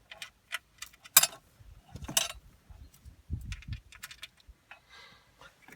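Scattered clicks and rattles of car stereo wiring connectors and plastic parts being handled and plugged in, with two sharper clicks about one and two seconds in and a few dull thuds after.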